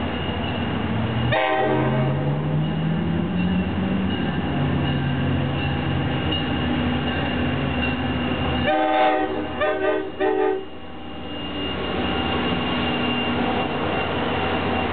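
NJ Transit GP40 diesel locomotive passing close by: its multi-chime horn sounds at first and cuts off about a second and a half in, while the diesel engine revs up in rising pitch and then runs steadily under load. About nine seconds in the horn blows again, one longer blast followed by several quick short toots, then stops.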